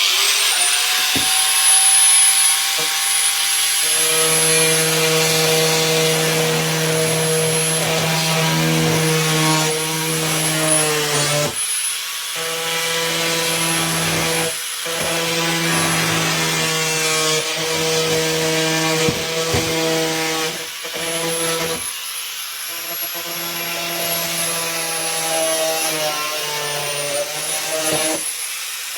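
Angle grinder converted into a power chisel, switched on with a quickly rising high whine and then running while it cuts into wood, with a low steady buzz under the whine. The sound breaks off briefly a few times.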